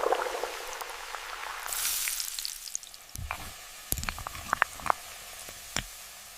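A sizzling hiss for about three seconds, then several light, sharp clinks and taps, as of glassware or utensils on glass.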